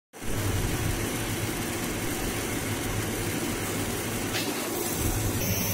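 Twin-screw food extruder line running in production, with a steady machine hum and an even hiss over it.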